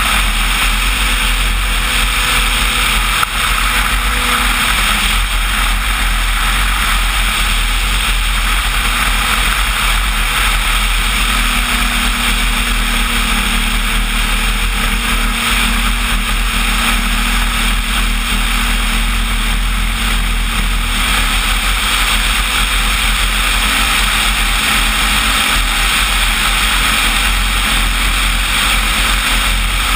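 Radio-controlled Cessna 185 float plane in flight, recorded onboard. A loud, steady rush of wind and propeller noise runs throughout, under a low motor hum that shifts slightly in pitch.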